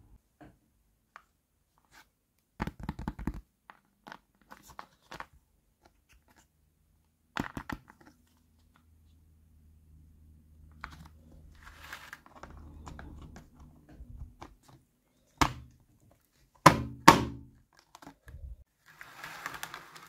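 Hard plastic parts of a toy kitchen playset being handled and fitted together: scattered clicks and knocks with scraping and rubbing between them. The loudest sound is a pair of sharp knocks about three-quarters of the way in, as the back panel is pushed into place.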